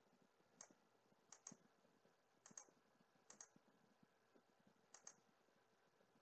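Faint computer mouse button clicks, mostly in quick pairs, about five times over six seconds, with near silence between them.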